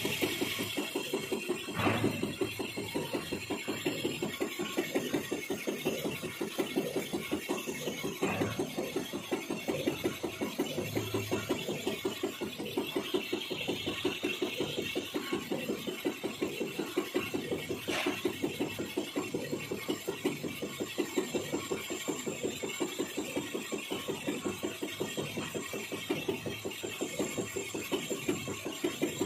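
Engine lathe running and cutting, a tool turning the taper of a steel bevel pinion blank held in a four-jaw chuck: a steady mechanical drone with a fast, even pulsing and three sharp ticks.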